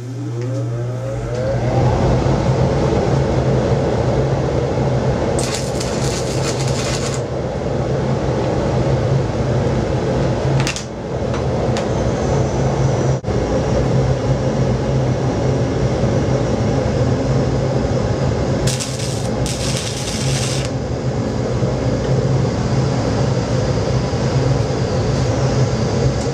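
Welding machine humming steadily, building up over the first couple of seconds, with two short crackling bursts about 5 and 19 seconds in, fitting two stick tack welds with an E6010 electrode.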